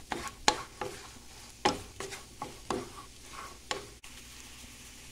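A wooden spoon scraping and knocking against a frying pan while stirring scrambled eggs that are sizzling in butter: a quick, irregular run of scrapes. About four seconds in, the stirring stops and only a steady, faint sizzle remains.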